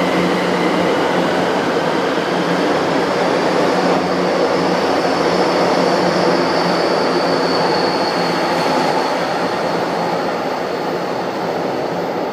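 São Paulo Metro Line 1 train pulling out of the station, its cars running past at rising speed, with a high thin whine coming up about halfway through. The sound eases off slightly near the end as the last car leaves.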